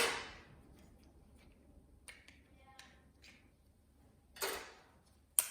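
A sharp clack at the start that rings out briefly, a few faint small clicks, a short scrape or rustle, then another sharp click near the end: parts being handled during a TV teardown.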